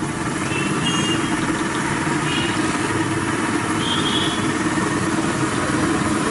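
Steady roar of the stove's gas burner heating a large iron kadai of frying oil, with a few faint, brief high chirps over it.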